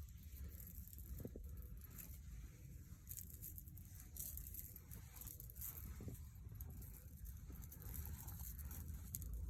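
Faint rustling and handling noises, with a few soft clicks, over a low steady rumble.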